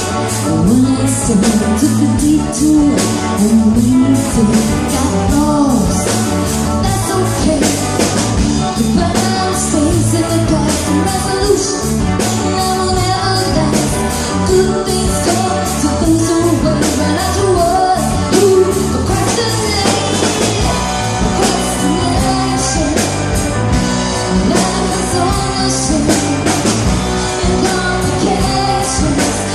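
Rock music with a lead vocal over a steady drum beat.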